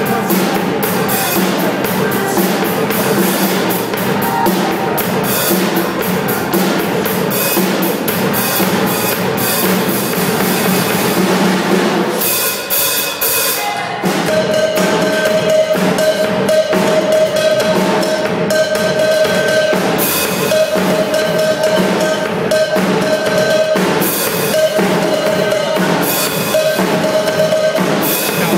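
Drum kit played live: a continuous beat of bass drum, snare and cymbals, with a short break in the pattern about twelve seconds in.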